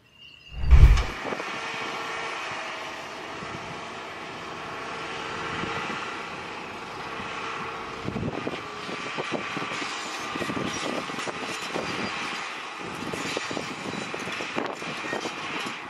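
Diesel engines of a Hitachi crawler excavator and a wheel loader running steadily while they work, with scattered knocks and clatter. A heavy thump about a second in is the loudest sound.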